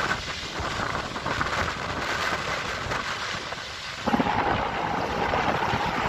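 Strong wind buffeting a phone's microphone in a loud, steady rush. About four seconds in the sound shifts abruptly to a louder, lower rush.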